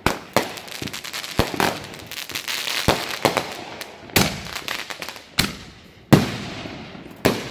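Aerial fireworks going off overhead: a string of sharp bangs about a second apart, with a run of dense crackling from the bursting stars a couple of seconds in.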